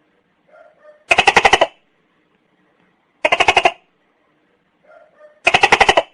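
Tokay gecko calling: three loud, rapid pulsed croaks about half a second long and about two seconds apart, each preceded by a pair of faint short notes.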